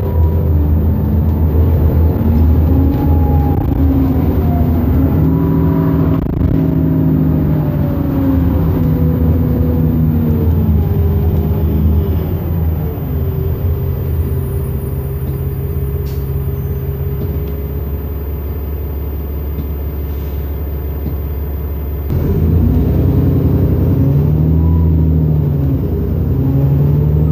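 Alexander Dennis Enviro400 double-decker bus's diesel engine and drivetrain heard from inside the bus. It works hard at first, eases off to a lower, quieter run for about ten seconds, then picks up again with rising pitch about 22 seconds in as the bus accelerates.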